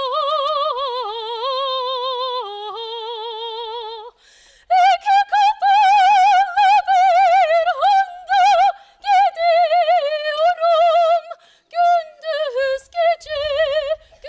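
A woman singing a Turkish folk song in operatic style, unaccompanied, holding long notes with a wide vibrato. She breaks for breath about four seconds in, then goes on with a higher, louder passage in shorter phrases.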